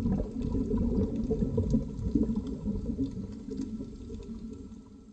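Underwater reef ambience: a muffled low rumble of moving water with faint scattered clicks above it, fading out toward the end.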